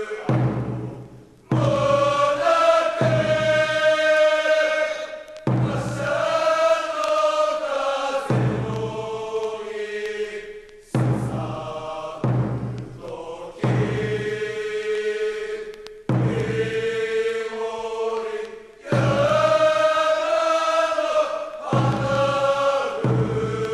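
Group of men singing an old school song or cheer song in unison, chant-like, in long held phrases with short breaks between them.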